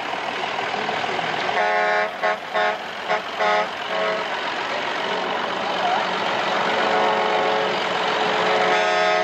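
Vehicle horn honking: a longer toot about two seconds in, several short toots after it, and another long toot near the end, over a tractor engine running steadily.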